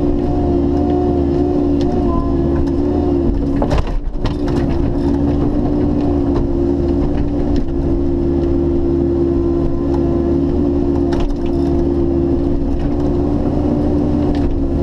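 Bobcat E50 mini excavator's diesel engine running steadily under hydraulic load as the ripper tooth tears through roots, with a sharp crack of wood snapping about four seconds in and a few lighter cracks later.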